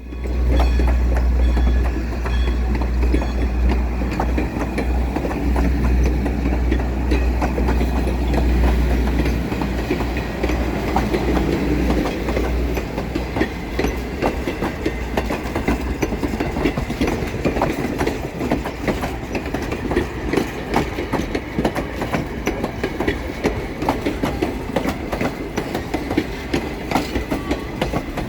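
Steam-hauled excursion train passing close: a heavy low rumble for about the first twelve seconds as Great Western 90, a steam locomotive, goes by. Its passenger cars follow, their wheels clicking steadily over the rail joints.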